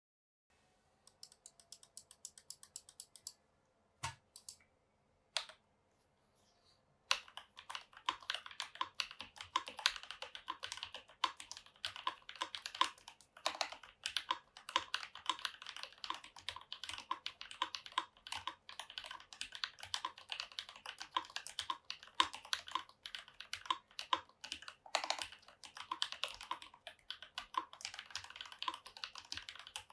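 Rama Works U80-A mechanical keyboard with Holy Panda tactile switches and GMK keycaps being typed on. A short run of quick clicks and a couple of single key strokes, then from about seven seconds in, steady fast typing.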